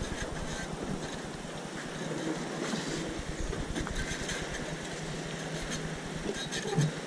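A motor running steadily at idle, a low even hum with a fast, fine ticking in it.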